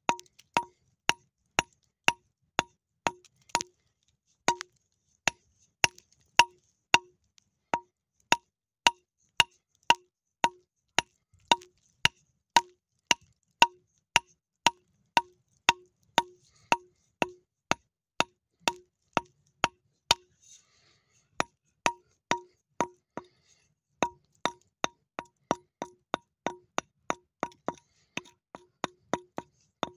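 A small hammer tapping rock around an embedded agate, chipping it free: a steady run of sharp, ringing taps, about two a second, with a short break about twenty seconds in.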